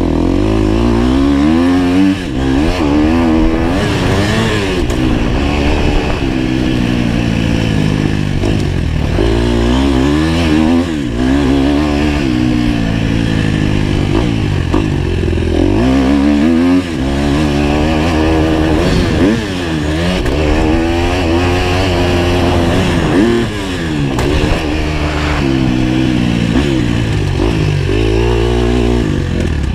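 Dirt bike engine heard close up while it is ridden hard around a motocross track. The engine pitch climbs and drops every second or two as the rider opens and closes the throttle.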